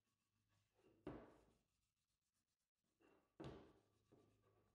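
Two faint rubbing strokes of a gloved hand on a cherry table-leg block, each a short swish that fades, the first about a second in and the second a little after three seconds.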